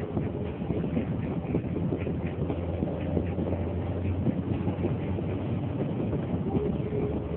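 Car driving on a country road, heard from inside the cabin: a steady rumble of engine and tyres on asphalt, with many small ticks and rattles throughout.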